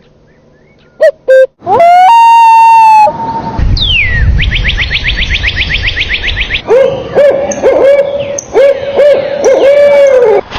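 A string of animal calls of several kinds, one after another: two short calls, a steady held tone, a fast even trill, then a run of about ten short repeated calls, each dropping in pitch at its end.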